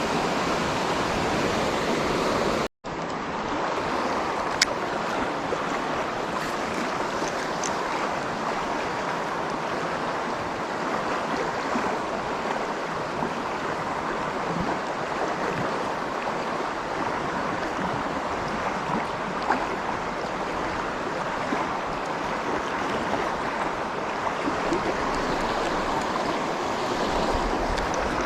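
Fast-moving creek water rushing steadily, with a momentary break about three seconds in.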